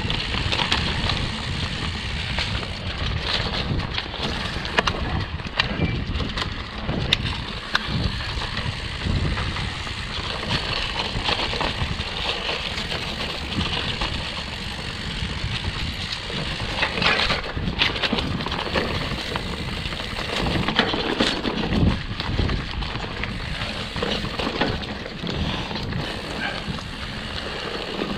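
Mountain bike rolling fast down a dirt forest singletrack: tyres on dirt and leaf litter with a steady rumble, and frequent short knocks and rattles from the bike over roots and bumps.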